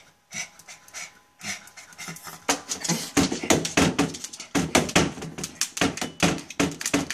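Dog panting fast, starting softly and getting louder about two and a half seconds in, at about five breaths a second.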